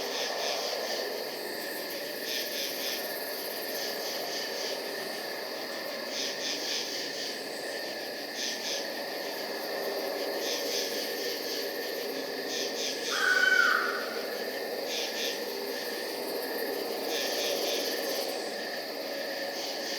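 Night ambience of crickets chirping in short pulsed bursts every couple of seconds over a steady high insect trill and a low rushing, wind-like bed. A brief, louder call rises above it about 13 seconds in.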